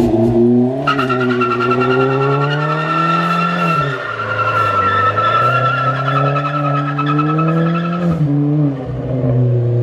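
Turbocharged Lexus IS300 straight-six engine revving up and down under load, with a steady high-pitched tyre squeal from about a second in to about eight seconds in, typical of wheelspin.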